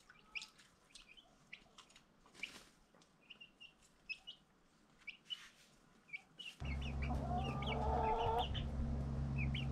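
Baby chicks peeping in a brooder, many short high chirps. After a cut about two-thirds in, adult hens cluck in a coop over a steady low hum.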